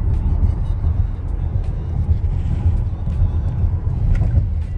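Steady low rumble of road and engine noise inside a car cabin while driving at highway speed.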